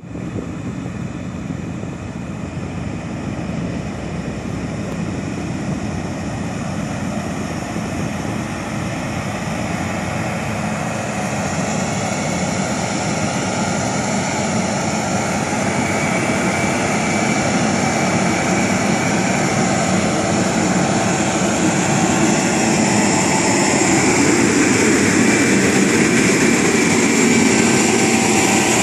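Cat 160K motor grader's diesel engine running steadily under load while its blade scrapes and spreads gravelly soil. The sound grows gradually louder as the grader draws near.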